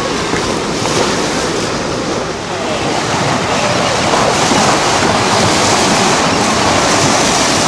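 Steady rush of sea water splashing and wind buffeting the microphone.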